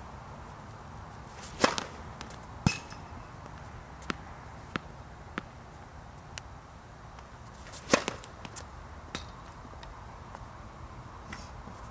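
Sharp pops of tennis balls being hit and bouncing on an outdoor hard court: three loud ones, about two, three and eight seconds in, among fainter single ticks of balls bouncing farther off.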